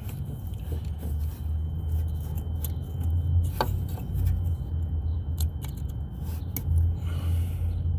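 Scattered small clicks and taps of a new crankshaft position sensor being handled and worked into its bore by hand, over a steady low rumble.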